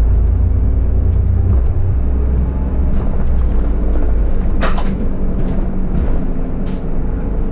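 Solaris Urbino 15 city bus heard from the driver's seat, pulling away with its engine running heavily under load for the first couple of seconds before easing off. About four and a half seconds in there is one sharp knock: a stone stuck in the tyre tread flying out and striking the wheel arch.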